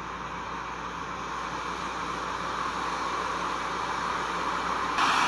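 Ocean surf sound effect: a steady rushing noise of waves that slowly grows louder as the waves build, with a sudden louder, brighter rush starting near the end.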